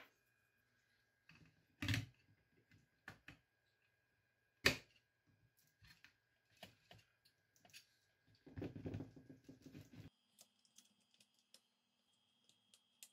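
Scattered small clicks and taps from handling wires and parts of an electronics enclosure, with a brief rustling scrape near the end.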